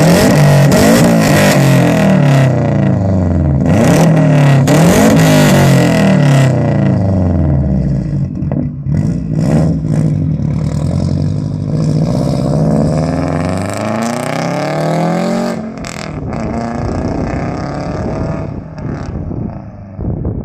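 2007 Subaru Impreza WRX turbocharged flat-four with a straight-pipe exhaust, free-revved in a series of quick sharp blips, then held through slower, longer rises and falls in revs with a few sharp cracks in between. About two-thirds of the way through the sound drops away and fades as the car pulls off.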